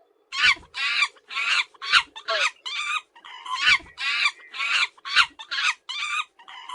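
Monkey calling: a rapid series of about a dozen high, pitched calls, roughly two a second.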